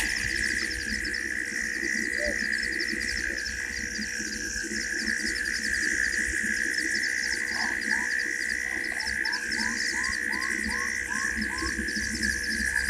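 Night bush chorus: a steady shrill drone and rapid high chirping from calling insects. From about halfway in, a run of about ten short rising calls from a night animal, two or three a second.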